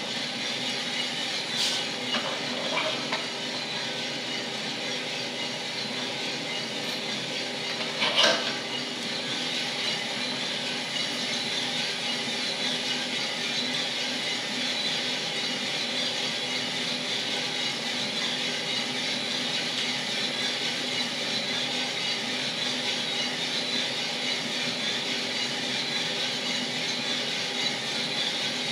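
1 kg Mill City drum coffee roaster running early in a roast, a steady whooshing hum from the turning drum and fan. A few sharp clicks come about two and three seconds in, and a louder knock about eight seconds in.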